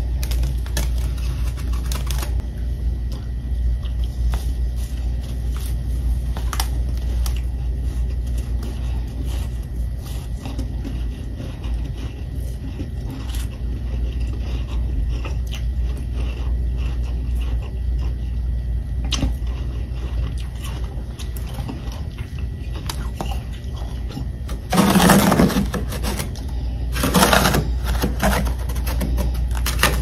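Freezer frost being scraped and crunched: many small crackles over a steady low hum, with two louder crunches near the end.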